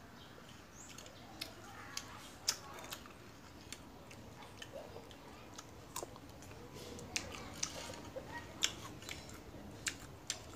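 Quiet, wet mouth clicks and smacking of someone chewing sour tamarind, a dozen or so sharp clicks coming at uneven intervals.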